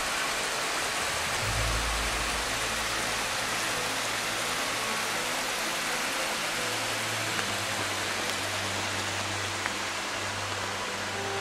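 Small waterfall splashing into a rock pool: a steady rush of falling water.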